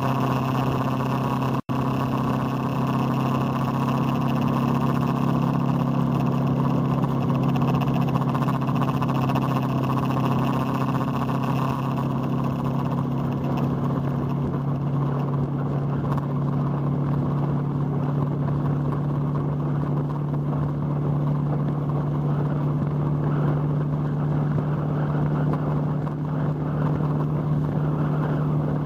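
Motorcycle engine running steadily at cruising speed, heard from the moving bike with wind rushing over the microphone. There is a momentary cut in the sound about a second and a half in.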